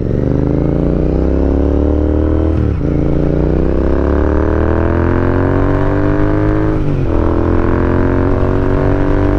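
Royal Enfield Interceptor 650's parallel-twin engine accelerating up through the gears. The note climbs steadily, with two upshifts about three and seven seconds in, each dropping the pitch before it climbs again.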